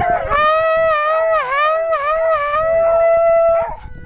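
Harrier hounds giving tongue: one long, held howl of about three and a half seconds that wavers slightly in pitch and stops near the end. The description casts this baying in 13-week-old pups as a good sign they will work.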